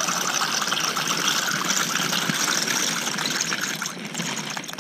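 Dry pasta shells poured from a plastic bag into a pot of water on a lit gas camping stove: a dense stream of small rattling clicks and splashes over a steady hiss. It eases off a little after four seconds in.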